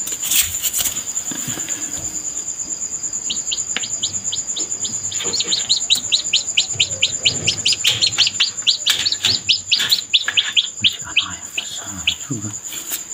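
Newly hatched chicken chick peeping: a rapid run of short, high chirps, about four or five a second, starting a few seconds in, over a steady high-pitched whine.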